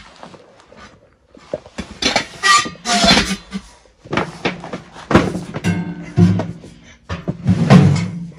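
Irregular metal clanks, knocks and scrapes as a tent stove and its flue pipe sections are handled and fitted together, some hits ringing briefly.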